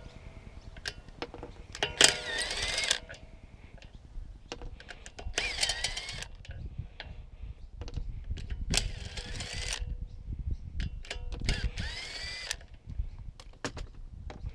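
Power tool run in four short bursts of about a second each, its motor pitch bending up and down within each burst.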